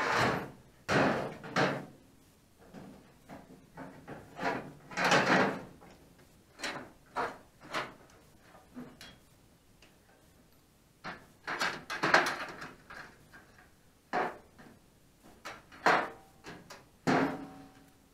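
Steel drawers of a Craftsman five-drawer tool chest clunking and rattling as they are tugged against the engaged drawer lock: a string of short knocks and clicks, some with a brief metallic ring.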